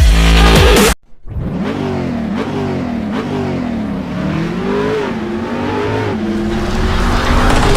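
Loud electronic music cuts off about a second in. A sports car engine follows, its pitch falling and rising again several times as it is revved and driven through the gears, then it settles into a steadier drone near the end.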